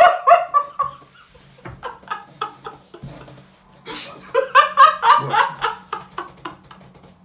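A man laughing in short, choppy bursts, louder at the start and again about four seconds in.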